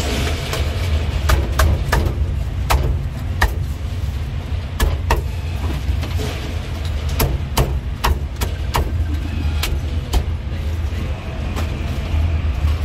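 Cleaver chopping through roast duck onto a wooden chopping block: a dozen or more sharp, irregular chops. Under them runs a steady low rumble of engine noise.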